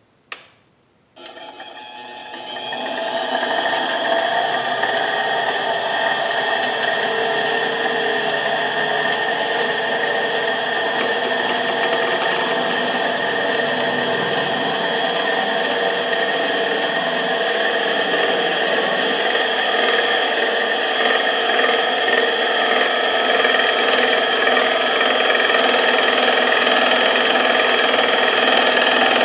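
A click, then a benchtop mini lathe starts up about a second in and rises to speed over a couple of seconds. It then runs steadily with a whining motor while a drill bit in the tailstock chuck bores the centre hole in a spinning bar of pure titanium.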